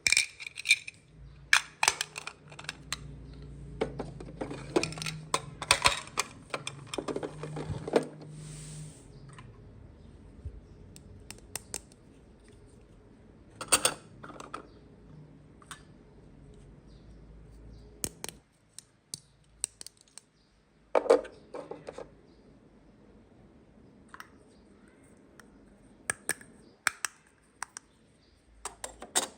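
Small plastic toy-playset pieces being handled: scattered sharp clicks and taps, with a busier stretch of handling noise over the first eight seconds.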